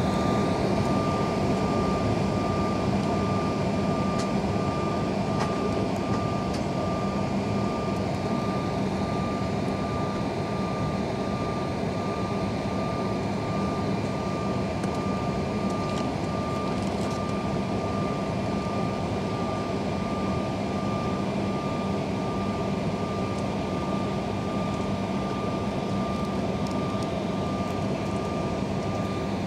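Airliner cabin noise with the jet on the ground: a steady rush of air from the ventilation, with a constant low hum and a thin high whine from the aircraft's machinery.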